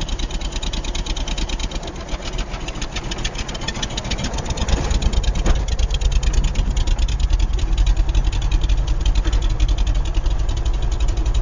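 Old Craftsman garden tractor's engine running with a fast, even firing beat, growing a little louder from about four seconds in: the engine wheezing back to life after sitting unused for about eight years.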